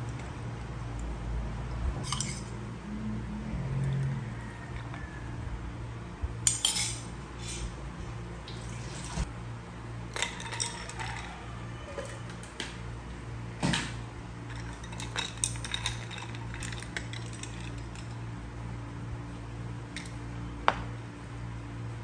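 Milk poured over ice cubes in a tall drinking glass, then ice and a straw clinking against the glass in scattered sharp clinks while an iced coffee is made. A steady low hum runs underneath.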